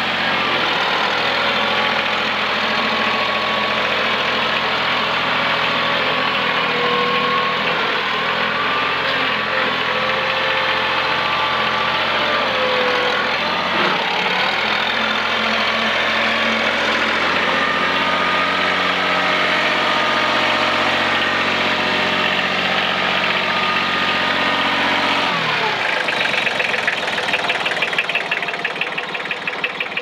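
Lahman 30 skid steer's engine running steadily while the machine drives and turns. About 25 seconds in, the revs fall sharply toward idle, and a fast rhythmic clatter follows near the end.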